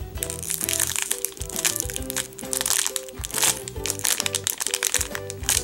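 Thin clear plastic packaging crinkling over and over as a bagged foam cupcake squishy is handled, with background music playing throughout.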